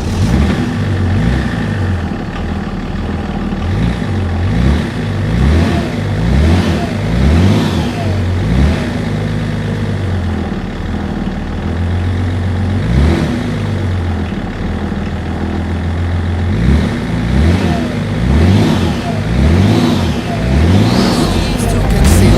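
Derbi supermoto motorcycle engine revving again and again, its pitch climbing and dropping back many times.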